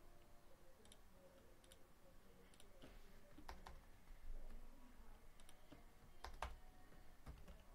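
Faint, irregular clicks from a computer mouse and keyboard, about nine in all, scattered with uneven gaps.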